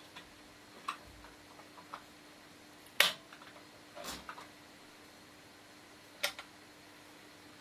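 Magnetic toggle switch being flipped: a handful of sharp clicks, the loudest about three seconds in, others about a second later and near the end, over a faint steady hum.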